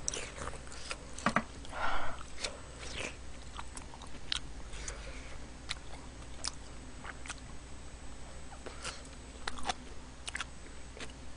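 A person chewing a mouthful of hot food close to a microphone, with scattered wet mouth clicks and smacks at an uneven pace. A few short breathy sounds come in the first three seconds.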